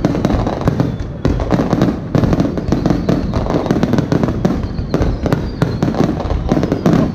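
Aerial fireworks shells bursting in rapid succession, a dense run of overlapping bangs and crackle with no pause.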